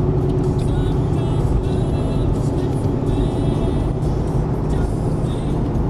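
Steady low rumble of a car driving at highway speed, heard from inside the cabin: engine and tyre noise on the road.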